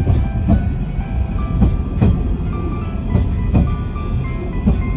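Asa Coast Railway DMV93 dual-mode vehicle running on rails: a steady low rumble with rhythmic clacks of its wheels over the rail joints. Background music plays over it.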